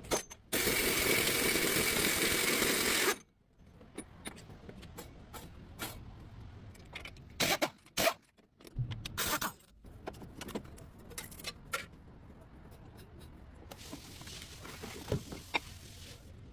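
A loud, steady rushing noise lasts about two and a half seconds and cuts off suddenly. Scattered metallic clinks and taps of tools and parts being handled follow, with a few louder knocks about halfway through.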